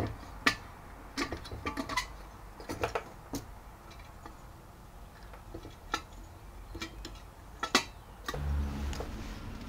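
Scattered sharp clicks and light knocks, about a dozen at uneven intervals. A low steady hum comes in near the end.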